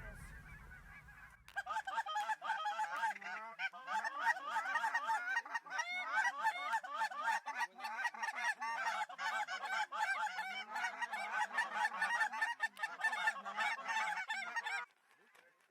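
Large flock of lesser Canada geese calling: a dense, overlapping chorus of many honks and cackles. It starts abruptly about a second and a half in and cuts off suddenly near the end.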